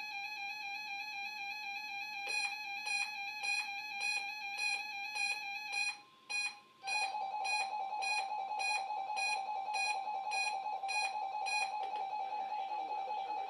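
Weather radios sounding their electronic alert tones: a steady tone, joined about two seconds in by a short beep repeating a little under twice a second. About six seconds in, after a brief drop, a different warbling tone takes over, and the beeping stops near the end.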